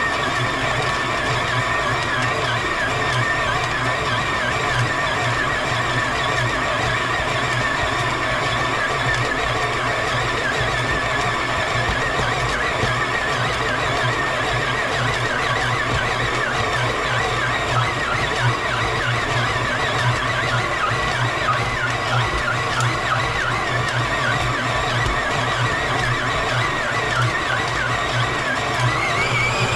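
Electric stand mixer running steadily, its dough hook kneading a sticky bread dough, with a constant motor hum and gear whine.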